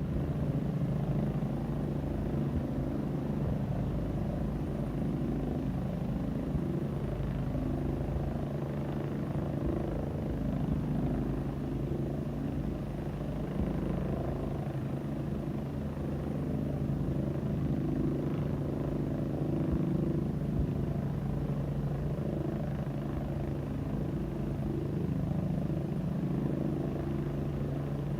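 A helicopter's rotor and engine running steadily: a fast, even rotor chop that holds a constant level.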